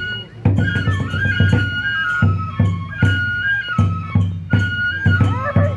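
Oni-kenbai accompaniment: a Japanese transverse bamboo flute playing a repeating high melody over regular taiko drum beats and clashing small hand cymbals.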